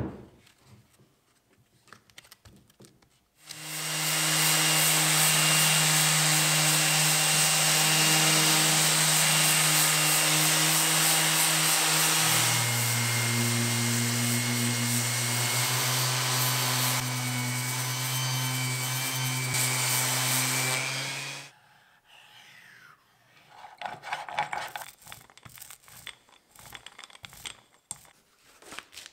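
An electric power tool cutting wood, running steadily for about eighteen seconds with its pitch stepping down a little about halfway, then cutting off suddenly. Faint handling rustles follow.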